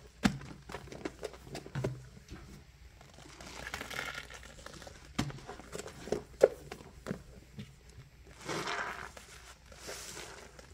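A soapy sponge scrubbing a stainless steel sink full of suds, making irregular wet squelches and scrapes, with two longer hissing stretches about four and nine seconds in. The sponge is squeezed out near the end.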